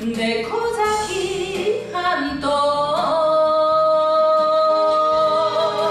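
Enka song performed live: a woman singing over the backing music, her melody moving and then settling into one long held note from about three seconds in.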